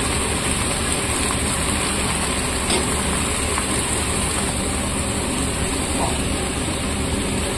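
A steady low hum with an even hiss over it, and a faint scrape of a spatula stirring sliced ridge gourd in a kadhai about six seconds in.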